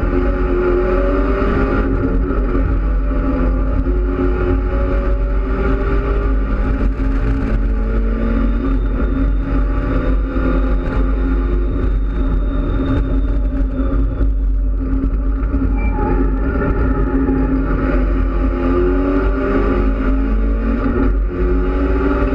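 Mitsubishi Lancer Evolution X race car's turbocharged 2.0-litre four-cylinder engine heard from inside the cabin at speed, its pitch climbing under acceleration and dropping back several times at upshifts. A steady low drone of road and wind noise runs under it.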